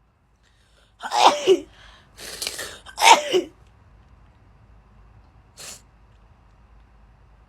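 A girl sneezing twice in a fit, two voiced sneezes with a falling pitch about two seconds apart, a sharp noisy breath between them, and a short breathy puff a couple of seconds later.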